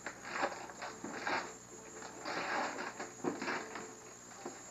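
Wrapping paper rustling and tearing in several short bursts as a present is unwrapped.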